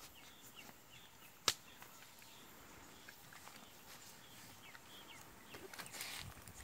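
Quiet handling of a leather saddle's girth strap as it is cinched, with one sharp click about a second and a half in and a rustle of the strap near the end. Small birds chirp faintly.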